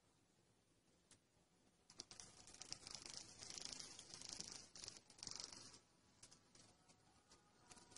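A cockroach fluttering and buzzing its wings against a tile floor: a rapid, dry, crackling rattle. It starts about two seconds in and runs for three to four seconds, then starts again near the end.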